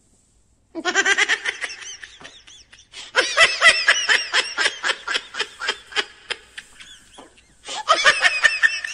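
High-pitched, rapid laughter in three long bouts, starting about a second in, with short breaks between them.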